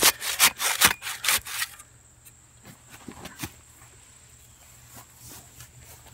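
A square shovel's blade jabbed repeatedly into concrete mix and soil packed around a pole in a post hole, making rapid gritty scraping strokes about four a second that stop about two seconds in. After that only a faint steady high whine and a few small ticks remain.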